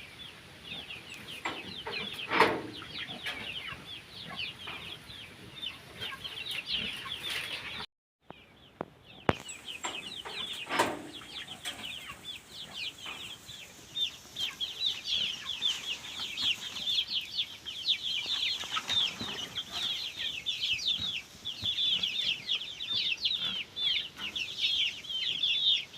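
A flock of young layer chickens cheeping and clucking, many short high calls overlapping without a break. The sound cuts out for about a second about eight seconds in.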